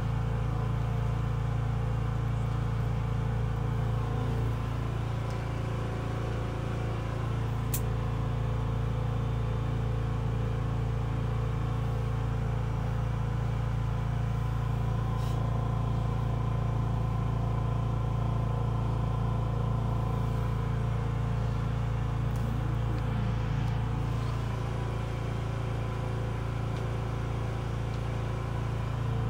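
Steady low mechanical hum that does not change, with a few faint clicks.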